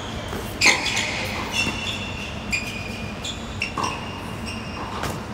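Tennis rally on a hard court: a tennis ball struck by rackets and bouncing, heard as several sharp pops, the loudest about a second in, with sneakers squeaking on the court surface in between.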